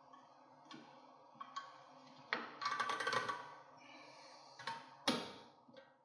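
Sharp metallic clicks and scraping as pliers compress a B0-platform car's rear drum-brake shoe hold-down spring and turn its cup washer onto the retaining pin. There is a cluster of clicks about two to three seconds in, and the loudest single click comes about five seconds in.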